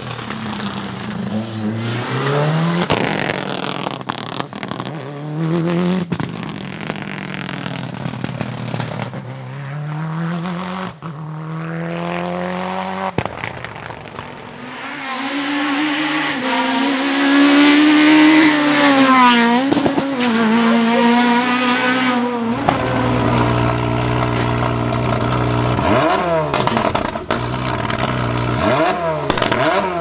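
Rally car engines at full throttle. First a Subaru Impreza Group A's turbocharged flat-four climbs through its gears, its pitch rising and dropping again with each shift. Then a car approaches loud and passes with a drop in pitch, and near the end an engine runs steadily with sharp throttle blips.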